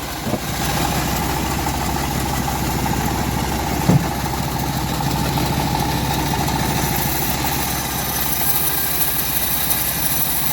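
Engine of a homemade bandsaw mill running steadily, with a single sharp knock about four seconds in.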